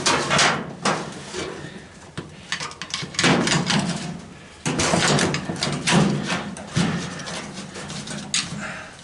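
Metal clanking and scraping as a tool pries at the clips holding a washing machine's pump and motor, in several separate bursts with pauses between them.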